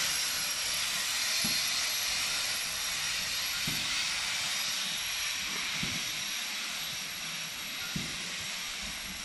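Steam locomotive venting steam: a steady loud hiss that slowly eases off a little.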